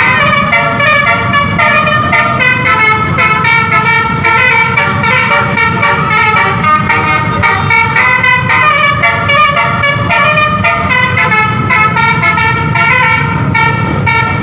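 A bus's telolet Basuri musical horn playing a tune, its notes changing every fraction of a second, over a low rumble.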